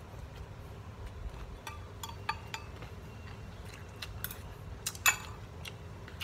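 Eating sounds: a man chewing batter-fried anchovy fritters, with a few scattered light clicks from his mouth and a metal spoon, the loudest about five seconds in. A low steady hum runs underneath.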